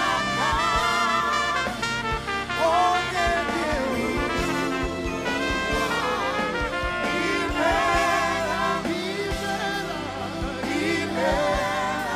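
Live gospel worship band music: held chords under a wavering melody line with vibrato.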